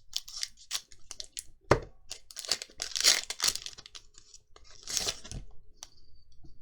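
Foil wrapper of a Magic: The Gathering draft booster pack being torn open and crumpled: a run of sharp crinkling and tearing crackles, loudest about three and five seconds in.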